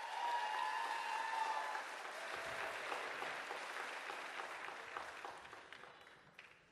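Audience applauding at the end of a dance number, dying away near the end.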